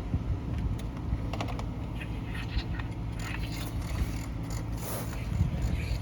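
Scattered light clicks and rubbing, typical of a phone being handled and tapped, over a steady low rumble.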